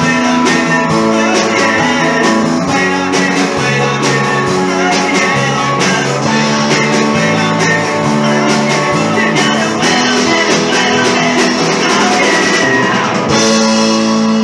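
Rock band playing an upbeat song with guitar, drums and singing; about a second before the end it swells onto a held final chord.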